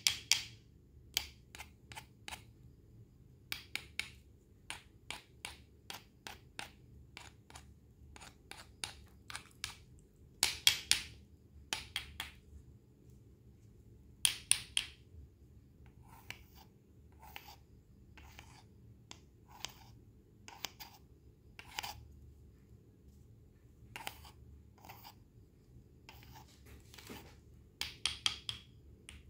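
A knife slicing through fresh produce on a cutting board: a run of short, crisp cuts and taps, some coming in quick clusters.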